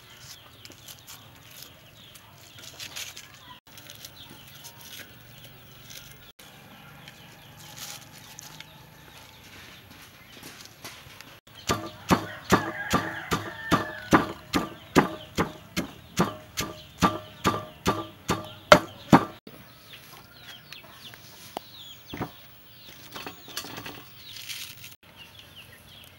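Wooden pestle pounding pieces of smoked fish in a heavy mortar: a run of steady, dull knocks, about two to three strikes a second, starting a little before halfway and lasting about eight seconds.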